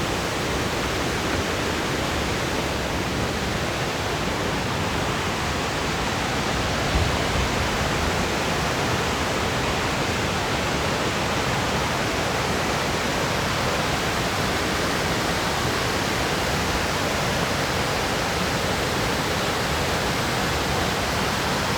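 Cascading waterfall rushing steadily, a continuous even roar of falling water.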